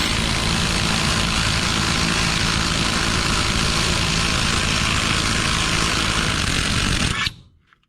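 AOBEN cordless 1/2-inch impact wrench hammering in reverse to break loose and back out a tightly driven bolt. It runs steadily, then stops abruptly about seven seconds in as its brake-stop feature halts the motor once the fastener is loose.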